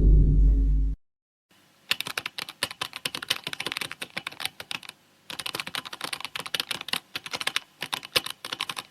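The deep tail of a loud effect cuts off abruptly about a second in. Then come rapid, irregular light clicks in two runs, with a short break about halfway.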